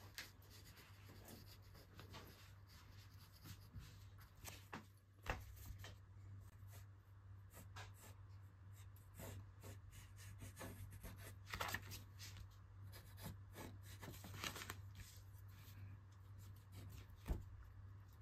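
Pencil sketching on paper: faint, quick scratching strokes, with a couple of sharper knocks about five seconds in and near the end.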